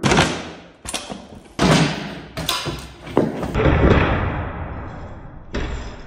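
Several dull thuds and knocks spread over a few seconds: a dirt jump bike hopping and landing its tyres on a carpeted shop floor.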